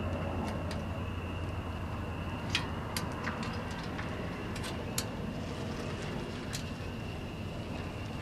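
A few sharp, short clicks and taps of hand tools and metal parts, spaced irregularly, over a steady background hum.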